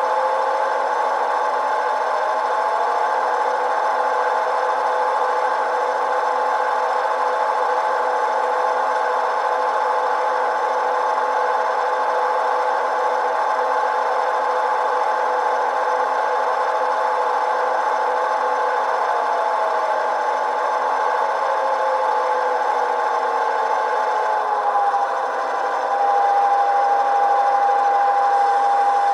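Model-train sound decoder playing a GP9 diesel locomotive's engine through two tiny sugar cube speakers, with no bass. The engine runs steadily, and its pitch glides as it moves between throttle notches. Near the end it dips briefly, then comes back louder with a strong steady tone.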